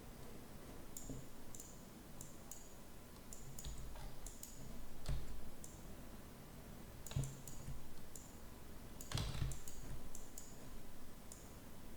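Irregular, scattered clicks of a computer mouse and keyboard, with a few soft low thumps at the desk.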